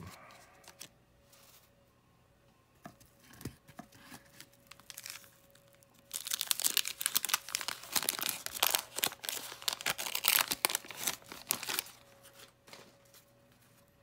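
Wax-paper wrapper of a 1991 Fleer basketball card pack being torn open and crinkled by hand. A few soft handling rustles come first. About six seconds in, a loud, dense crackle of tearing and crumpling paper starts and lasts about six seconds.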